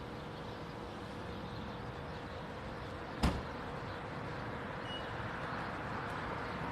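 Steady outdoor street noise with a faint steady hum, broken by a single sharp knock about three seconds in.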